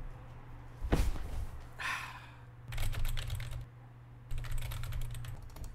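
A heavy thump about a second in as a person drops into a leather office chair, followed by a short rustle and two runs of rapid clicking.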